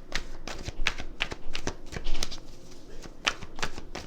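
Tarot cards being shuffled and handled: a string of quick, uneven card snaps and taps, several a second, the loudest about two seconds in.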